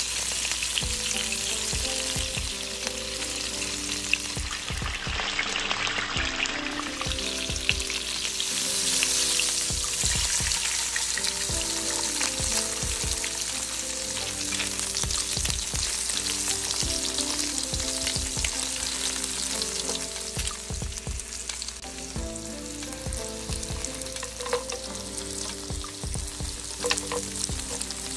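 Shrimp frying in hot oil in a pan with a dense, crackling sizzle. Later, beaten egg and then strips of green bell pepper and carrot sizzle in the same oil.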